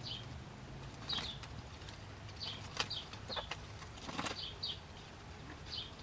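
Muscovy ducklings peeping: short, high, faint peeps about once a second, some in quick pairs. A few short clicks and rustles come in between as they peck at bindweed leaves.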